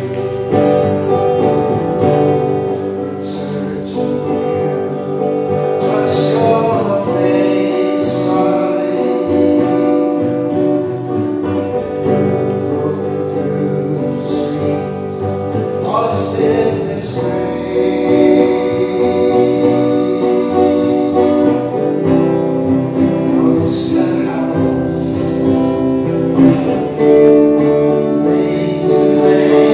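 Music: a song sung with guitar accompaniment.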